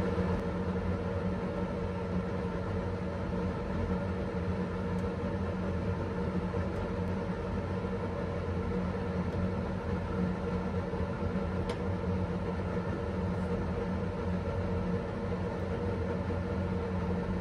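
Steady mechanical hum of a kitchen range hood fan running at a constant speed, with a faint click about twelve seconds in.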